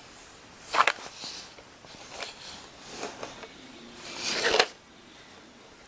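A sealed cup of Jagarico potato sticks being handled and turned over in the hands: rustling and scraping against the cup, with a sharp one about a second in and a louder, longer one near the end.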